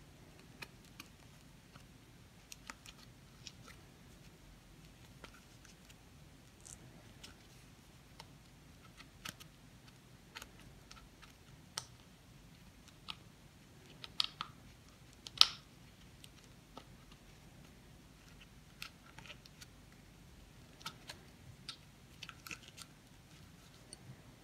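Faint scattered clicks and light scrapes from braiding paracord on a hand-held jig: a flat metal screwdriver picks strands up and drops them over the screw heads, and the cord is pulled tight. The sharpest click comes about halfway through.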